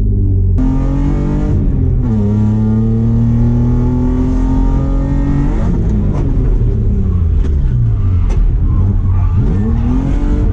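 BMW E36 325i's 2.5-litre M50B25 inline-six, running through an ISR blast pipe exhaust, revving hard on track. The engine climbs about half a second in, holds a steady high pitch for a few seconds, drops away, then climbs again near the end.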